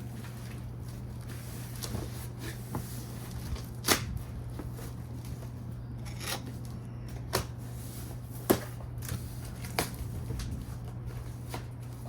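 Scattered knocks, clicks and rustles of packaging being handled as a cardboard box of patio furniture parts is unpacked, over a steady low hum.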